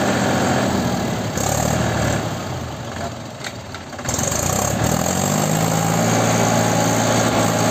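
Mahindra 265 DI tractor's diesel engine working under load, straining to drag a loaded trolley out of mud. It eases off for a moment about two seconds in, then revs back up about four seconds in.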